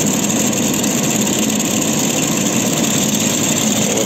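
Titan 40cc two-stroke petrol chainsaw idling steadily.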